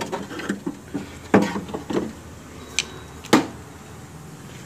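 Rusted wiper linkage rods of a Maruti WagonR knocking and scraping against the metal cowl panel as they are worked out of it by hand. There are a few sharp clicks and clanks, the loudest about three seconds in.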